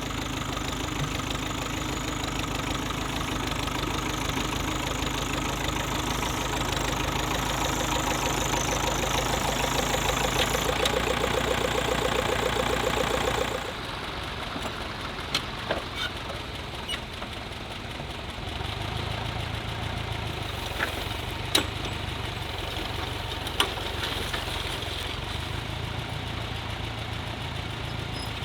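Tractor engines running: a steady, louder engine for about the first half, then an abrupt change to a quieter engine sound with a few sharp clicks and knocks scattered through it.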